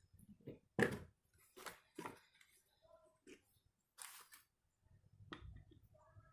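Small hand-handling sounds of speedometer parts being worked on: irregular clicks and taps, a sharper knock about a second in, a brief scrape about four seconds in, and a few short squeaks.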